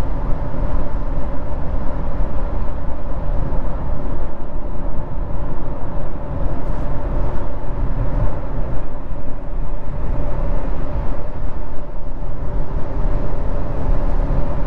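Steady road and wind noise heard inside a 2023 Honda CR-V cruising at highway speed: a low, even rumble with a faint steady hum, and no changes or sudden sounds.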